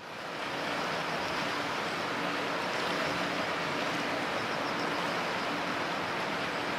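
Steady rush of wind and choppy sea water, with the faint drone of the tug-boat's engine underneath; the sound fades in at the very start.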